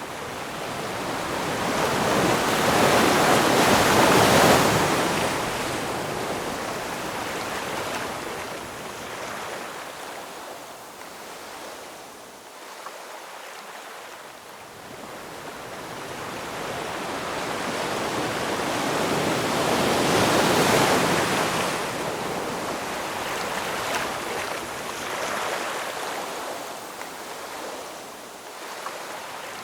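Ocean waves breaking and washing on shore: two big swells of surf, one peaking about four seconds in and another around twenty seconds in, each fading away into a quieter wash.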